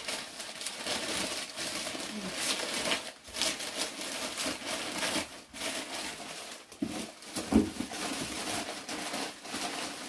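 Newspaper and a plastic bag crinkling and rustling irregularly as bundles of greens are wrapped in newspaper by hand and packed into a plastic-lined styrofoam box.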